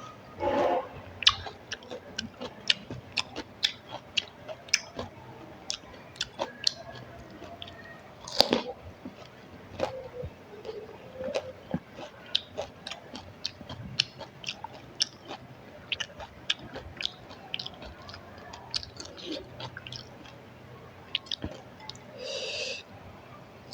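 Close-up chewing and crunching of fuchka (pani puri), the crisp fried puri shells cracking in the mouth as a quick run of sharp crunches, several a second. There are bigger bites just before a second in and about eight seconds in.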